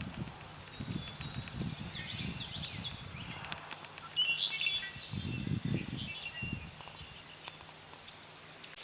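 Wild birds chirping and calling in short, scattered high notes and brief trills, over intermittent low rumbling noise.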